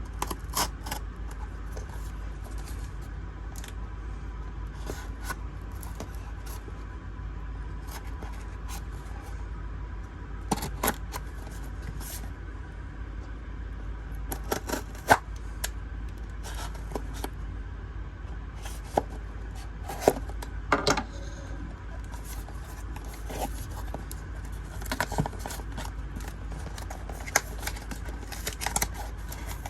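Cardboard mailing box being opened by hand: scattered scrapes, clicks and tearing of tape and cardboard, with a steady low hum underneath.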